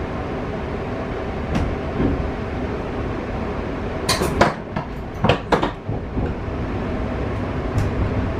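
Steady low hum and rumble of an N700S Shinkansen train, with a quick run of about five sharp clunks and knocks about halfway through.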